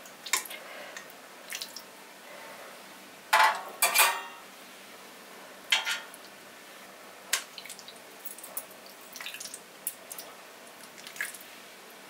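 Kitchen clatter: scattered clinks and knocks of dishes and utensils being handled, the loudest two close together about three to four seconds in.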